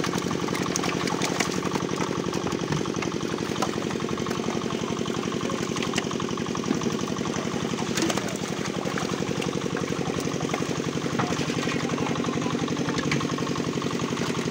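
An engine running steadily with an even, rapid beat, and over it scattered sharp splashes and slaps of fish thrashing in shallow water.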